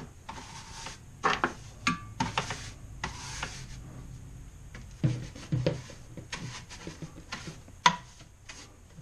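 Stiff hand brush sweeping drilling debris off a drill press's metal table and vise toward a plastic dustpan, in short irregular scrubbing strokes with light clicks. There is a sharp tap a little before the end.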